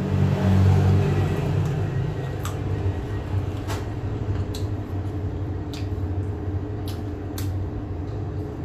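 Low steady engine-like hum, strongest for the first two to three seconds and then easing off, with a few light clicks scattered through it.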